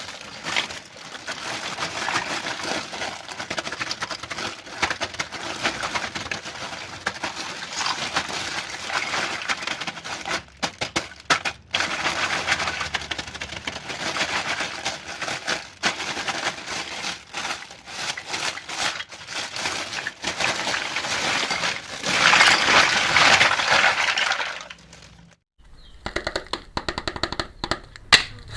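Plastic packaging being handled, crinkling and crackling continuously. There are a few brief breaks and a louder stretch near the end.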